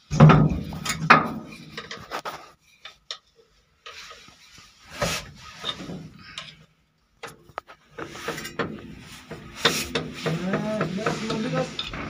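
Scattered rubbing, scraping and clinking of hands and tools on a diesel engine's fuel injection pump during pump-timing work, with short pauses between the noises.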